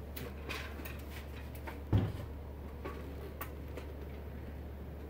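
Quiet room tone with a steady low hum, a few faint clicks and one dull thump about two seconds in, the kind of handling and footstep noise made while walking around with a hand-held camera.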